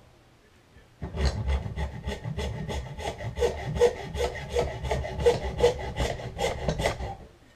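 Handsaw cutting off an antler tine: quick, even back-and-forth strokes, about four a second, with a faint ringing from the blade. It starts about a second in and stops shortly before the end.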